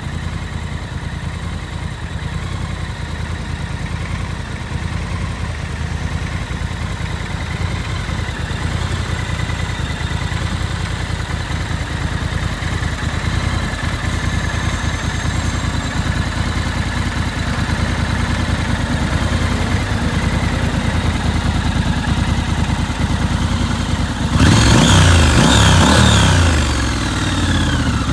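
Triumph Scrambler 1200 XE's 1200 cc parallel-twin engine idling steadily. Near the end it is revved once, the pitch climbing and then sinking back toward idle.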